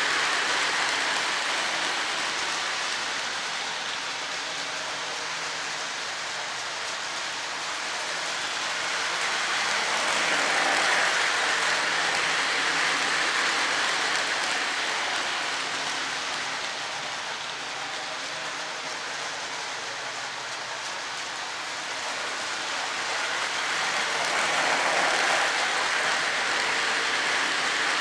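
O-gauge model train, a Lionel GE U36C diesel pulling metal-wheeled coal hoppers around a loop of three-rail track, running with a steady rolling hiss of wheels on rails. The sound swells each time the cars pass close by: about 11 seconds in and again near the end.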